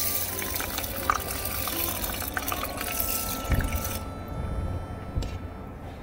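Water poured from an enamel cup into an aluminium mess tin of raw rice, splashing steadily as the tin fills, then stopping about four seconds in.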